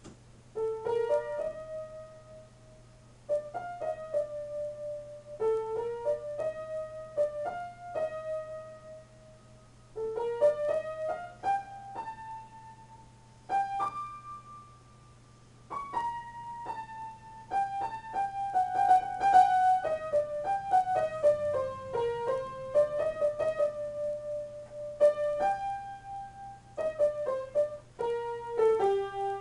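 Solo piano improvisation: short melodic phrases separated by brief pauses, the first starting about a second in, then continuous playing from about halfway that grows busier and louder.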